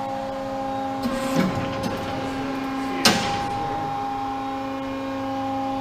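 Steady hum of the tube bender's hydraulic power unit (5 hp, three-phase) running with the machine powered up. A few light knocks come about a second in, and a single sharp click about three seconds in.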